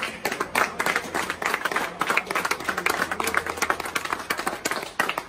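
A small group of people clapping hands, many quick irregular claps overlapping.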